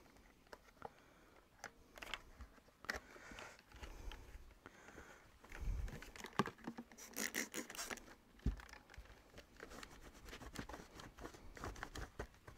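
Faint handling noises as plastic vacuum-cleaner parts are wiped, scraped and knocked by hand: irregular clicks and rubbing, a few dull thumps, and a dense run of sharp scratchy clicks about seven to eight seconds in.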